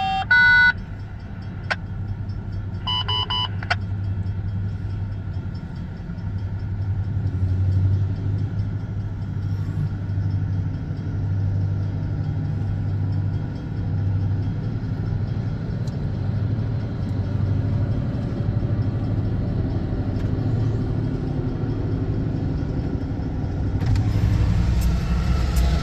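Diesel locomotive engine running with a steady low rumble as it shoves a cut of covered hoppers, getting louder and fuller near the end. Short electronic tones from a two-way radio sound at the start and again about three seconds in.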